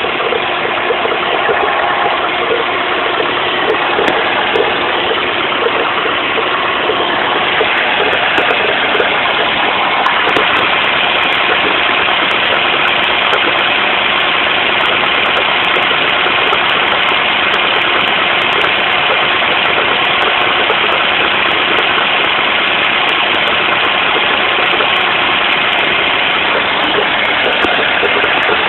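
Car engine idling with an extraneous murmuring noise from the clutch area, a sign of a clutch-side fault that the owner is trying to trace. The upper part of the sound grows stronger about ten seconds in.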